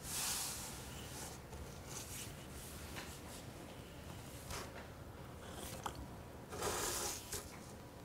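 Two short slurping sips of coffee from a cup, one at the start and one about seven seconds in, with a few faint small knocks between them.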